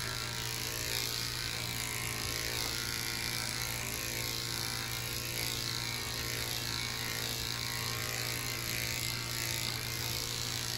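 Corded electric dog grooming clippers, fitted with a #5 blade, running with a steady hum as they are drawn through the curly coat of a Portuguese water dog's muzzle and cheek.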